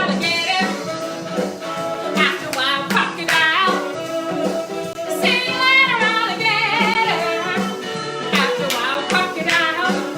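A song: a woman singing a melody over an instrumental backing with a steady beat.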